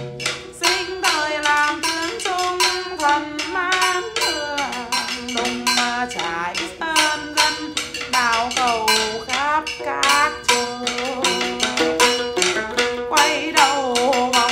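Chầu văn accompaniment: a đàn nguyệt (Vietnamese two-string moon lute) plucking a melody with bent notes, over steady taps of wooden percussion keeping the beat.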